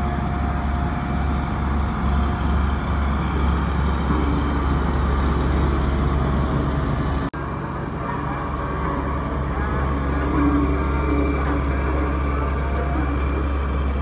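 Heavy diesel engine of an MC 26M single-drum road roller running steadily with a low, constant drone, broken momentarily about seven seconds in.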